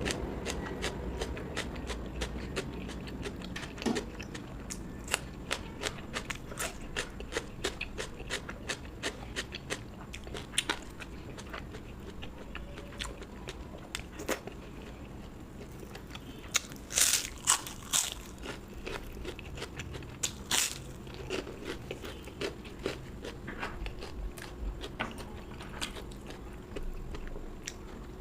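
Close-miked chewing and crunching of food, many sharp crisp crunches with moist chewing between them, loudest in a cluster a little past the middle.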